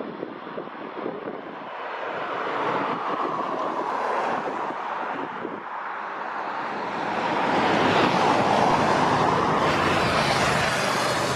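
Airbus A330-200F freighter's Rolls-Royce Trent 700 turbofans at taxi power: a steady jet roar and whine that grows louder about halfway through as the aircraft turns.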